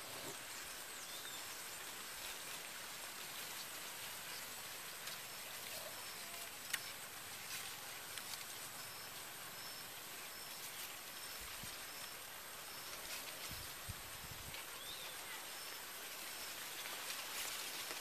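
Faint rural outdoor ambience: a steady hiss with a short high chirp repeating about once a second, and a few low rumbles on the microphone in the second half.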